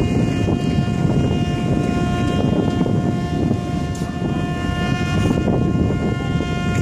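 A horn held on one steady note, over a low rumble and wind noise on the microphone, as the tanker slides into the water at its launch.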